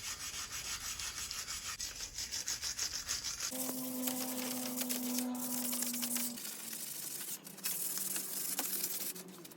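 Hand sanding of a bicycle frame with sandpaper, rapid back-and-forth rubbing strokes, smoothing the stripped metal before primer. The character of the rubbing changes abruptly a few times, with a faint steady hum in the middle part.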